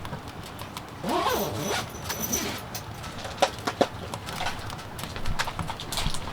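A short gliding pitched sound about a second in, followed by a series of sharp knocks and clicks, two of them louder in the middle.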